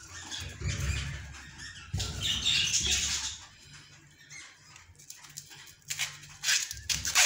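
Green husks being torn and stripped by hand from fresh ears of corn: rustling, tearing bursts, then a run of sharp crackles near the end.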